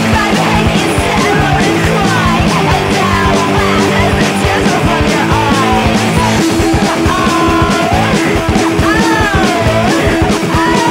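Punk rock song by a two-piece guitar-and-drums band: distorted electric guitar over fast, steady drums. About halfway through, a high melody line comes in that slides up and down in pitch.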